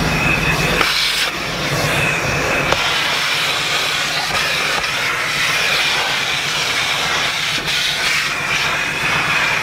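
Vacuum hose nozzle sucking air as it is worked over the floor in the back of a Jeep: a steady rushing hiss with a faint high whine.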